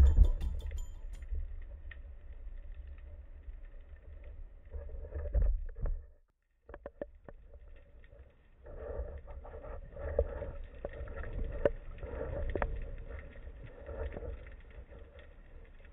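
Muffled underwater sound picked up through a camera housing: a low rumble of moving water with scattered clicks and soft swishes every second or two. It drops out briefly about six seconds in.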